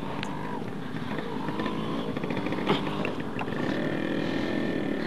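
Motorcycle engine idling steadily, with one sharp knock about two and a half seconds in.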